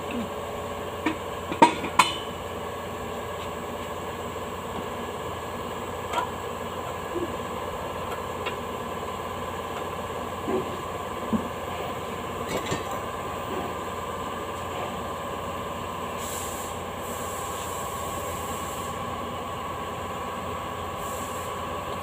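Scattered sharp metallic clicks and knocks of hand tools on a car's underside, the loudest a pair about two seconds in, over a steady workshop hum.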